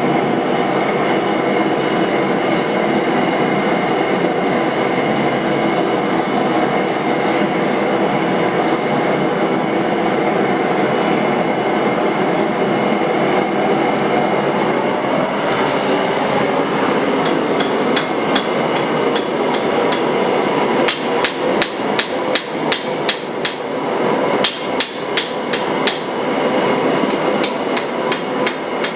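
A steady shop roar runs alone for about the first half. Then hammer blows on steel start and go on to the end, a few strikes a second, with the roar still underneath.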